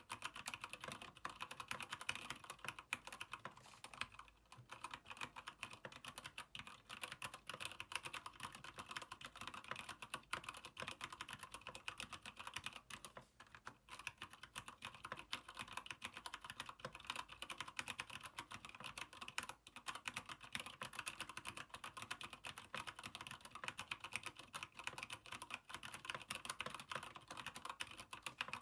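Continuous fast typing on a Keychron K8 mechanical keyboard with Gateron Brown tactile switches in an aluminium frame: a dense stream of key clacks, with brief pauses about 4 s and 13 s in.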